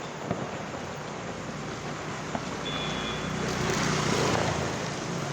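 Steady street traffic noise with a few faint sharp pops, like distant firecrackers, and a louder passing rush about four seconds in.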